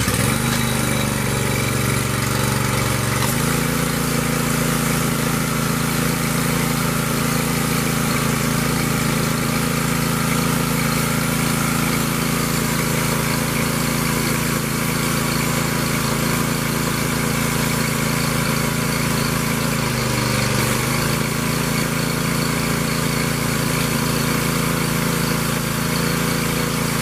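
Gas-engine pressure washer running steadily, with the hiss of the water spray from the wand. The engine note shifts up a little about three seconds in and dips briefly about twenty seconds in before settling back.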